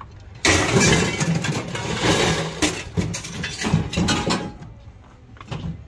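A motor engine running close by, starting suddenly about half a second in and easing off near the end, with scattered knocks and clanks of scrap metal being moved around in the back of a van.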